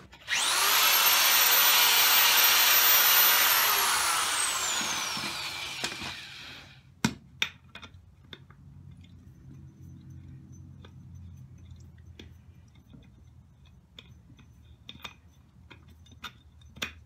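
Electric drill running at full speed for about six seconds while drilling out a strut top hat, then its whine falls away as it spins down. A few sharp clicks follow.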